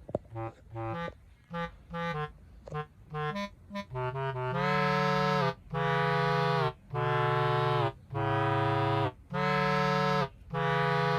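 Background music: short separate notes for the first few seconds, then long held chords of about a second each with brief gaps between them.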